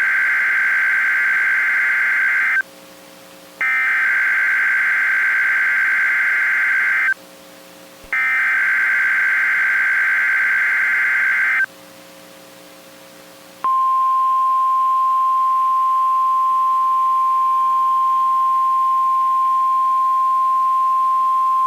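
NOAA Weather Radio Emergency Alert System alert opening a Severe Thunderstorm Watch. Three bursts of SAME header data, a harsh digital warble each about three seconds long with short gaps between. Then, about 14 seconds in, the steady 1050 Hz weather radio warning tone starts and holds.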